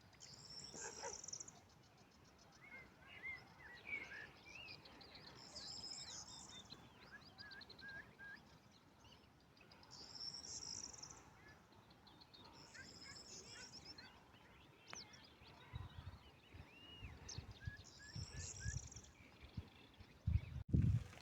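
Small songbirds singing: a high warbling phrase repeats every few seconds, with short lower chirps between. A few low rumbles near the end.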